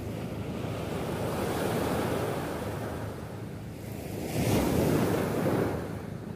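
Sea surf breaking and washing up the shore, with wind buffeting the microphone. A larger wave breaks about four seconds in, the loudest part, then its wash fades.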